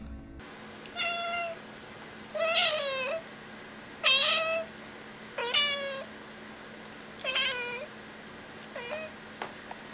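A grey tabby domestic cat meowing repeatedly: six separate meows, each with a falling pitch, about a second and a half apart.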